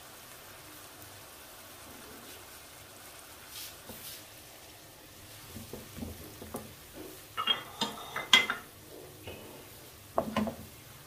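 Onions, chopped tomatoes and turmeric frying in oil in a non-stick pan with a low steady sizzle, while a wooden spoon stirs and scrapes against the pan. The knocks and scrapes come in the second half, in a cluster a little after the middle and again near the end.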